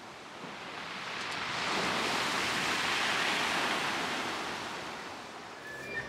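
A sea wave breaking and washing up the shore: one hiss that swells to a peak about halfway, then dies away.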